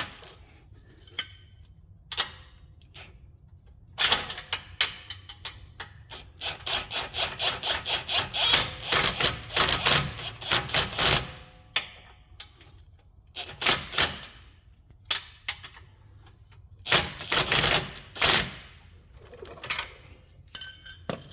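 Ratchet wrench clicking in several bursts, run fastest for a few seconds in the middle at about five clicks a second, spinning a nut onto a rear shock absorber's lower mounting bolt.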